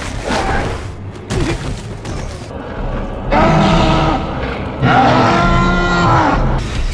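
Ape creature vocalization voiced by a human performer: two long, steady-pitched calls of about a second and a half each, starting about three seconds in.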